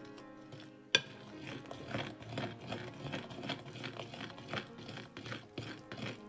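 Metal fork stirring flour, egg and olive oil in a glazed earthenware bowl, scraping and clicking against the bowl in quick strokes, about three a second. It begins with a sharp knock about a second in.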